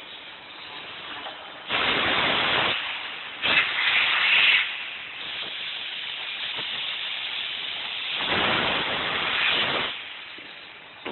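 Hissing from an automatic PVC car mat making machine: three loud hisses of about a second each, about two, four and eight-and-a-half seconds in, over a softer steady hiss.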